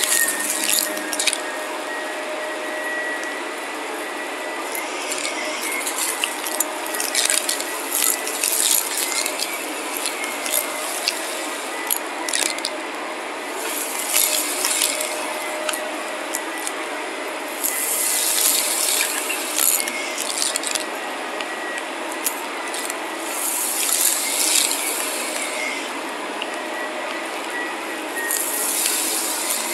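Shark upright vacuum cleaner running on carpet: a steady motor whine, with bursts of hiss and crackly clicking every few seconds as it is pushed over the pile and sucks up fine grit.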